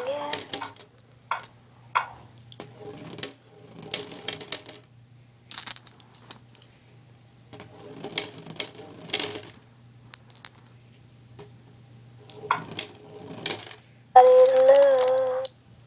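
Scattered light clicks and small rattles with rustling, in irregular clusters. Near the end a voice holds a single steady note for about a second.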